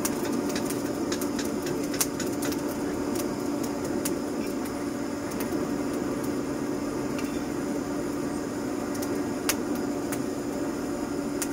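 Small electric forge blower running steadily, a constant hum with the rush of air being forced through a charcoal forge. Scattered sharp clicks and crackles sound over it.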